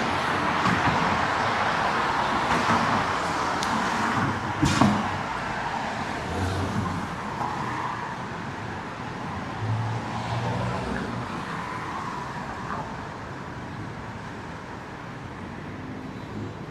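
Downtown street traffic: a car passes close at first, its tyre and engine noise fading away. A sharp knock comes about four and a half seconds in, followed by lower traffic hum with a few low engine tones.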